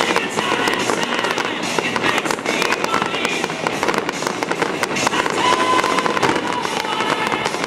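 Fireworks finale: a dense, continuous barrage of bursts and crackling, with a few short whistling tones mixed in about two-thirds of the way through.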